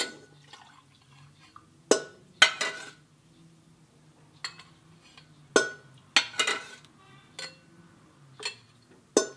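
Metal ladle scooping clam cooking liquid from a stainless steel pot and pouring it into a drinking glass. About ten sharp clinks and knocks of the ladle against the pot and the glass, irregularly spaced, with some pouring.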